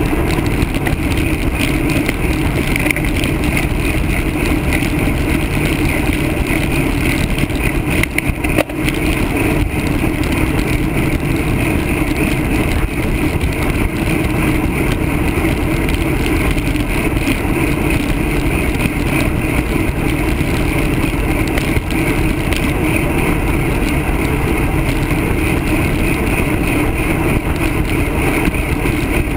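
Steady wind rush and road rumble on a handlebar-mounted camera's microphone while a road bike rides along asphalt at speed.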